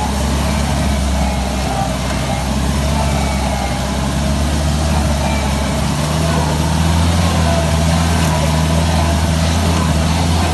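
Jeep engine running steadily while driving along a dirt track, heard from inside the vehicle. Its low hum steps up in pitch and gets a little louder about six seconds in.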